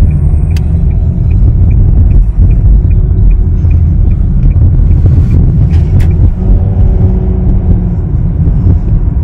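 Steady low rumble of a car driving, heard from inside the cabin with the ventilation fans running. A turn signal ticks evenly, about three clicks a second, for the first few seconds as the car turns.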